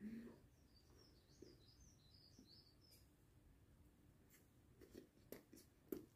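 Near silence: a faint, high, wavering chirp for a couple of seconds in the first half, then a few soft mouth clicks from chewing bread near the end.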